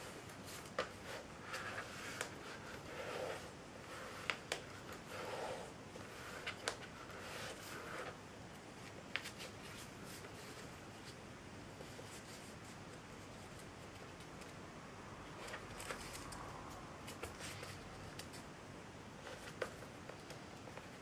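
A strip of printer paper being folded and creased by hand on a tabletop: soft rustling with sharp little clicks as the folds are pressed down, busiest in the first half.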